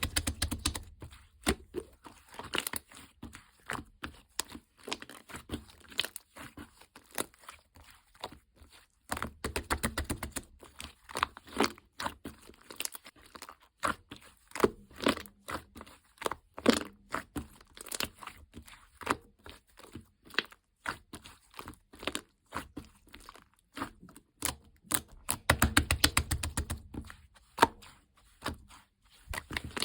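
Hands squishing, pressing and stretching slime, giving a steady stream of small crackling pops and clicks, with denser runs about a third of the way in and again near the end.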